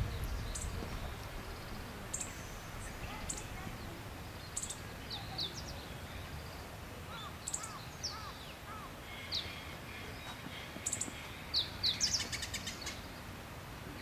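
Wild songbirds calling over steady outdoor background noise: scattered short high chirps and quick falling whistled notes, with a run of four lower arched notes in the middle and a brief rapid rattle about twelve seconds in.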